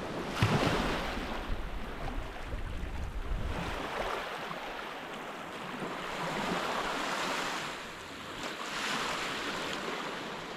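Sea waves breaking and washing up on a sandy beach, the surf swelling several times, with wind rumbling on the microphone during the first few seconds.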